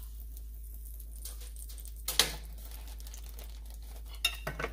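Kitchen handling sounds as a toasted corn tortilla and a spatula are set down on a foil-lined sheet pan: light foil crinkling, one sharp knock about two seconds in, and a few quick clicks near the end. The frying sizzle has stopped.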